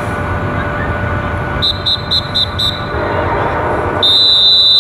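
A high, clear signal tone: five short, even beeps about four a second, then one long, loud beep near the end that cuts off sharply.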